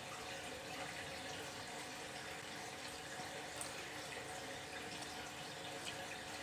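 Faint room tone: a steady hiss with a low electrical hum underneath.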